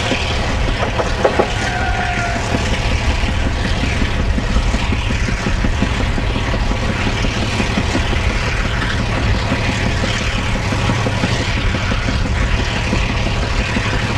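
GM diesel locomotive hauling a Taiwan Railway ordinary train, with a steady low engine rumble. About a second in there are a few clanks and a brief squeal.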